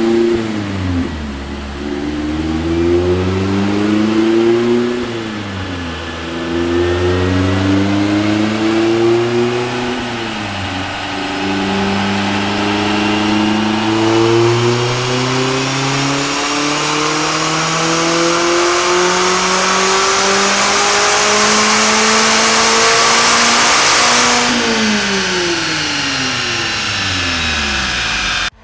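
Mazda MX-5 Miata RF's four-cylinder engine through a Goodwin Racing RoadsterSport SuperStreet axle-back exhaust, run on a chassis dyno. It revs up twice, with a drop in pitch at each upshift, then makes one long full-throttle pull that climbs steadily in pitch for about thirteen seconds. Near the end the throttle closes and the engine winds down. The dyno operator suspects an obstruction in the exhaust, from the way the tone changes during the pull.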